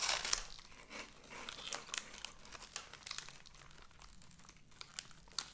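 Plastic snack wrapper crinkling in the hands: a louder crackle at the start, then scattered soft crackles.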